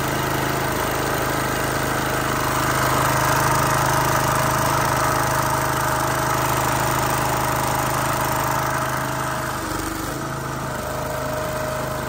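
Huskee 22-ton log splitter's small gas engine running steadily, driving the hydraulic pump as the control lever is worked and the ram moves. The note shifts briefly about ten seconds in.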